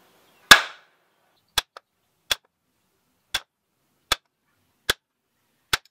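Seven sharp hammer blows on a wooden block, driving a carrier bearing down onto the post of a Ford 8.8-inch differential carrier, with the old bearing race as the driver. The first blow is the loudest and the rest come about one a second. The bearing is still working its way down the post and has not yet seated.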